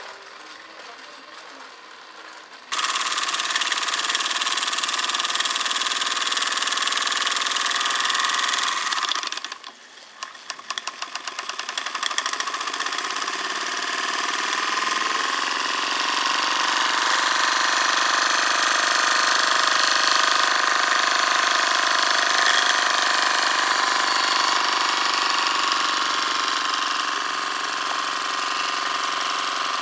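Gas-fired live-steam model traction engine (Mercer type 2) running: a fast mechanical chatter with hissing, starting suddenly about three seconds in. Near ten seconds it drops away briefly, then builds back with quickening beats and runs on steadily.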